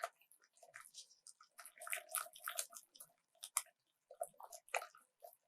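Thick gram-flour batter being stirred in a bowl: faint, irregular wet squelching and scraping strokes.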